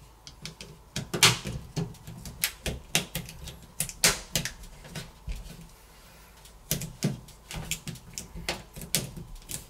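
Plastic inner back frame of a Samsung Galaxy A51 being pressed down onto the phone, its clips snapping into place: an irregular run of sharp clicks and taps, with a short lull midway.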